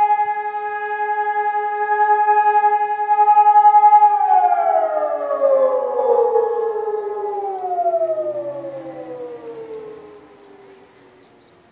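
Fire-alarm sirens, Sonnenburg SES 1000 and SES 500 electronic sirens and an E57 motor siren, hold one steady tone. About four seconds in, the pitch starts to fall as they wind down, and a second siren drops away about three seconds later. The sound then fades out, marking the end of one of the alarm's tones.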